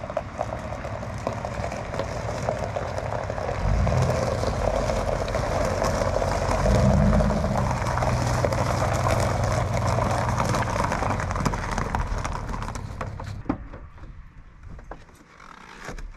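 A motor vehicle driving, its engine hum and road noise steady, growing louder about four seconds in. The noise then fades away after about twelve seconds, with a few knocks near the end.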